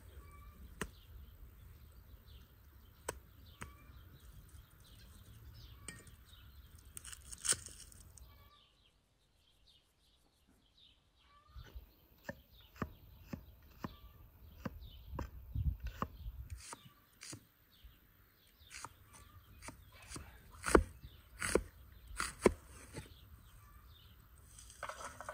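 A knife cutting raw goat meat, then a cleaver slicing onions on a tree-stump chopping block: a run of sharp knocks of the blade on the wood, loudest in the second half. Birds chirp in the background.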